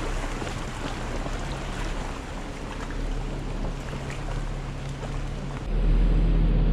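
Vehicle engine running at low speed as the tyres crunch over rock and splash through a shallow creek bed, a rushing noise of water and gravel over the engine hum. Near the end a louder low rumble comes in.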